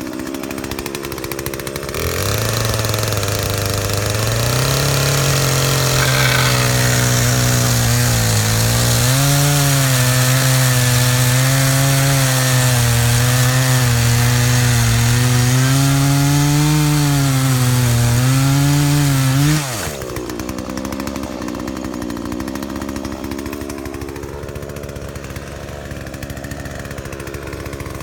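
Poulan two-stroke chainsaw idling, then throttling up at about two seconds and ripping lengthwise through a red oak crotch block, its pitch dipping and recovering under the load. After about twenty seconds it drops back to idle.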